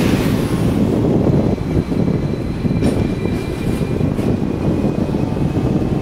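Hong Kong double-decker electric tram running along its rails, heard from on board: a steady low rumble with a faint high whine and a couple of sharp clicks about halfway through.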